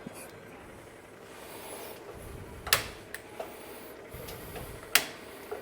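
A few sharp clicks at the newly installed LPG gas stove as it is being lit, the two loudest about two seconds apart with fainter ones between.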